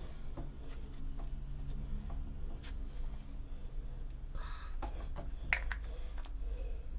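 Quiet handling sounds over a low steady hum: scattered small clicks and rubs, with one short hiss about four and a half seconds in.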